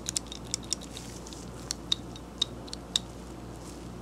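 Faint, irregular small clicks from a SATA 3/8-inch drive ratchet's anvil as it is rocked back and forth in the head. The play in the drive lets it knock lightly against the housing, a sign of a loose, not very stout anvil.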